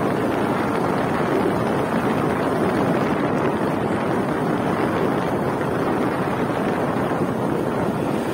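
Steady wind buffeting the microphone of a camera on a moving motorbike, an even rushing noise with no distinct engine note standing out.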